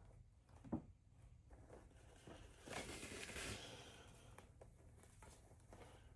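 Faint handling sounds of craft materials: a single soft knock under a second in, then a brief rustle about three seconds in.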